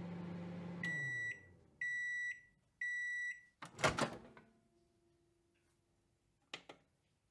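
Microwave oven finishing its cycle: the low running hum winds down about a second in, the done signal beeps three times, then the door clatters open, with a couple of short clicks near the end.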